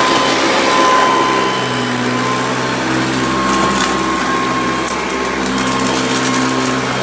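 Hoover Custom Convertible upright vacuum cleaner running steadily with a motor hum. From about three and a half seconds in, sharp clicks and clatters sound as hard debris such as glass and plastic is sucked up and struck by its fan.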